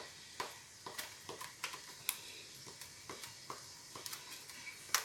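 Kitchen knife slicing a sausage into shallow accordion cuts, the blade stopping against a wooden skewer at each cut: a series of light, irregular clicks about two or three a second, with a sharper click near the end.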